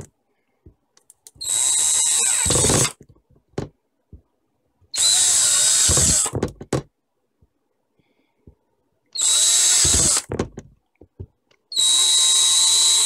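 Cordless drill with a 3/16-inch bit boring holes into 3/4-inch plastic pipe: four short bursts of about a second each, separated by pauses, each starting with a high whine.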